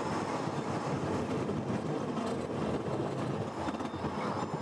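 Tram running along, heard from inside the passenger car: a steady running rumble.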